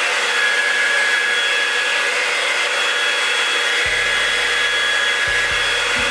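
Handheld hair dryer running steadily, a whooshing airflow with a high motor whine, drying freshly sprayed hold spray on a wig's lace at the hairline.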